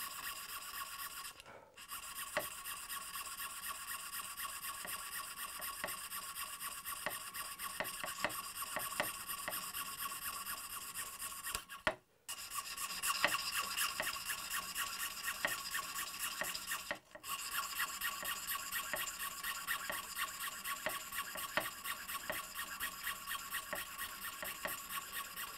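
Jeweller's saw cutting through a piece of mother of pearl: fine, rasping back-and-forth strokes at about three a second, breaking off for a moment a few times.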